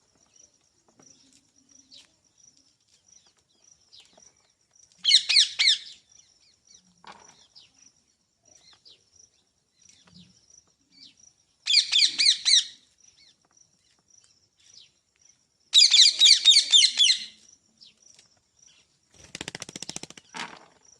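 Rose-ringed (ringneck) parakeet calling in three loud bursts of rapid, shrill repeated notes, about five, twelve and sixteen seconds in. Near the end comes a shorter, quieter rattling buzz.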